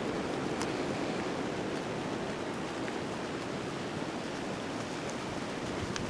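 A steady rushing noise, with a faint high tick about half a second in.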